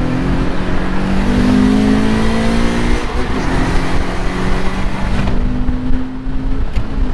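Toyota 86's FA20 flat-four engine, fitted with Tomei unequal-length headers and a catless overpipe, accelerating under throttle. Its pitch climbs for about three seconds, then breaks off, and it carries on at a steadier pitch.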